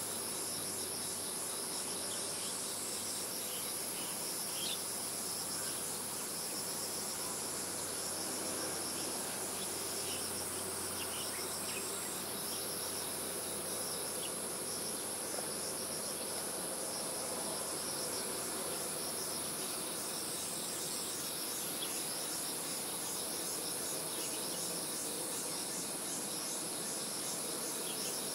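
Insects calling in a steady high-pitched drone whose pitch shifts slightly every several seconds, over a faint low background hum.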